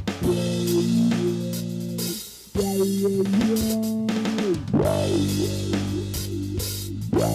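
Instrumental rock music: drum kit with bass drum and snare under sustained, bending guitar notes, briefly dropping out about two and a half seconds in.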